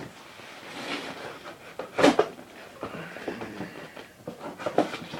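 A shipping package being opened and its contents handled: irregular rustling and scraping of packaging with a few short knocks, the sharpest about two seconds in.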